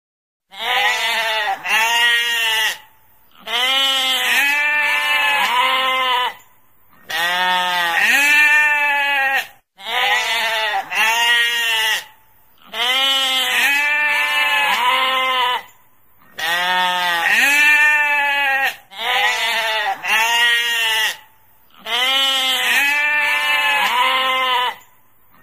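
Sheep bleating over and over: long, wavering calls in clusters of two or three, each cluster broken off by a short silence, about every three seconds.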